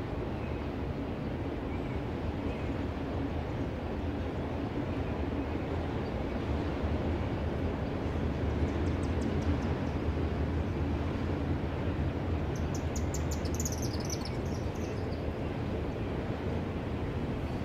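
CSX freight train rolling past steadily, its cars making a continuous low rumble. A quick run of high-pitched ticks comes about two-thirds of the way through.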